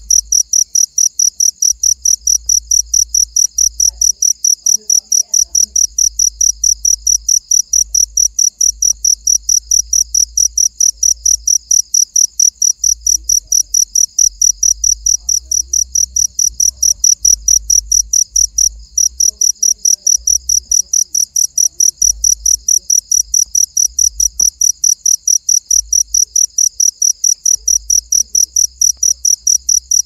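A cricket calling close by: a loud, fast, even train of high chirps that keeps going, with one brief break about two-thirds of the way through.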